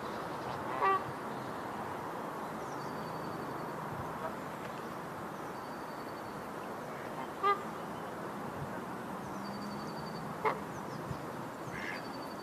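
Canada goose honking: three short, separate honks, about a second in, about halfway, and again some three seconds later, over a steady background hiss.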